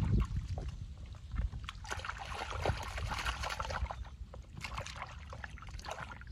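Hands sloshing and splashing through shallow muddy water while groping for catfish, in uneven bursts of small splashes, with a catfish grabbed near the end.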